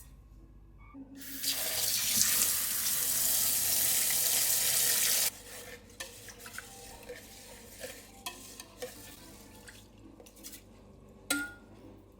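Kitchen tap running for about four seconds, then shut off abruptly; afterwards a few light clicks and knocks, with one sharper knock near the end.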